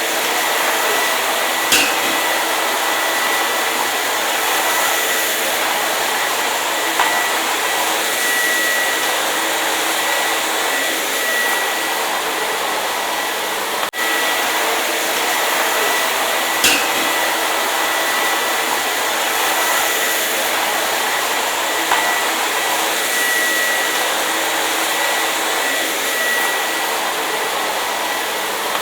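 Hair dryer running steadily: an even rushing noise with a thin high whine. Short clicks come about two seconds in and again about seventeen seconds in.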